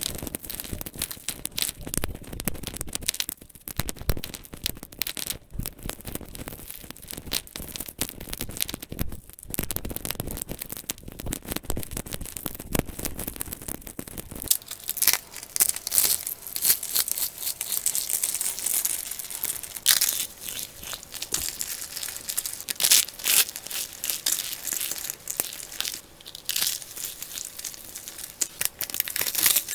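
Brittle, dry material being crushed and crumbled, a dense crackling and crunching. About halfway through it changes to a thinner, crisper crackle.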